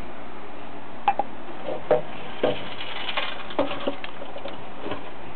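A hamster scurrying over newspaper and toys on the floor: irregular light taps and rustles, a little busier in the middle, over a steady hiss.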